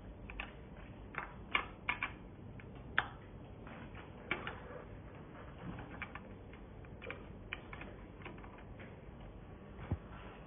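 Irregular light metallic clicks and taps of a hex-key multi-tool against a bicycle's handlebar stem and its clamp bolts, with a duller knock near the end.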